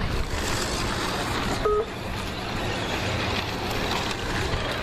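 Radio-controlled short course trucks racing on a dirt track: a steady mix of motor noise and tyres on dirt, with a brief beep a little under two seconds in.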